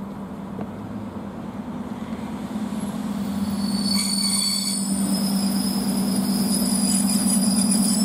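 ED4M electric multiple unit pulling into the platform and slowing, with a steady low hum that grows louder as it approaches. From about halfway, a high squeal of wheels and brakes sets in.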